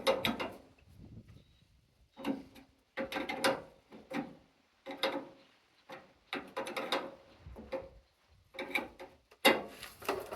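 Hand tools working the metal pins and fittings of a tractor loader's hydraulic lift cylinder: short bursts of clicking and scraping about once a second, with brief pauses between them.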